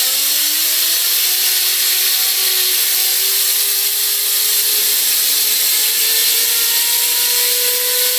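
Compressed air from an air compressor hissing steadily onto a fidget spinner. Over it the spinner whines, rising in pitch as it speeds up and then levelling off.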